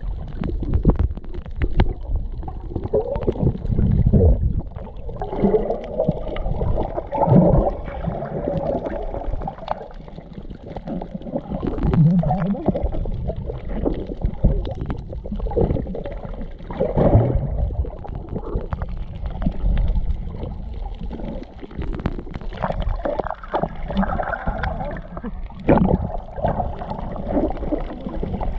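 Muffled underwater sound through an action camera's waterproof housing: deep rumbling water noise and gurgling bubbles that surge irregularly, with scattered clicks and knocks as the swimmers move nearby.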